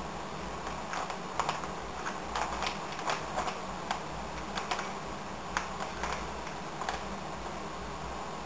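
Plastic vacuum-sealer bag crinkling and ticking as it is handled and smoothed into the open vacuum sealer's tray: a scatter of light, irregular clicks over a faint steady hum.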